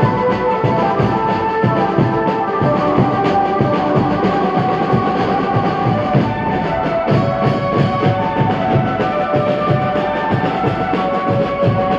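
Street marching band playing: a drum section beats a steady march rhythm under a melody of held notes.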